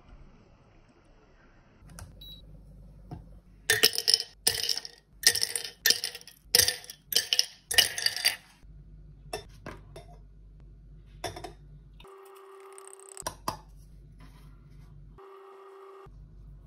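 Ice cubes dropped one at a time into a glass coffee server, a quick run of sharp clinks lasting about five seconds. Later come two brief steady hums, about a second each.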